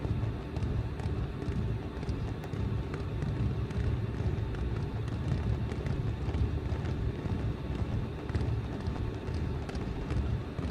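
Fireworks display heard in a field recording: a continuous low rumble with many faint crackles scattered through it.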